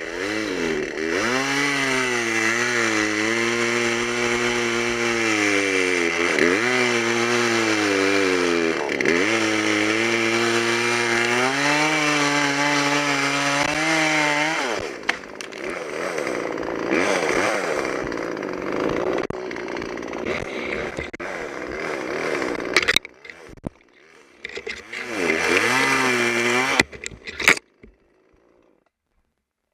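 Chainsaw cutting through a fallen tree trunk, its engine pitch sagging each time the chain bites into the wood. It runs on through a rougher stretch, pauses, runs briefly again and stops shortly before the end.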